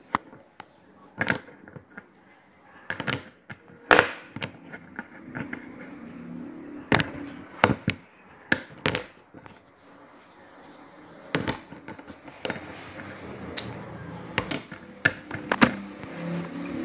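Hard clicks and clacks of square slate pieces being handled, tapped and set against each other in stacks, coming irregularly about once a second.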